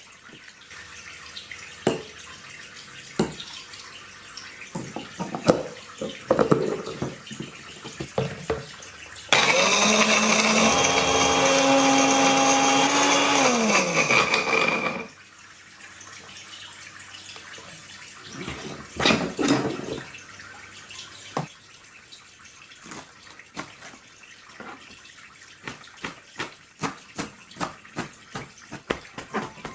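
An electric blender runs for about five seconds, its motor whine stepping up slightly in pitch and then winding down as it stops. Knocks and clatter of kitchen utensils come before and after, with a run of regular taps, about two a second, near the end.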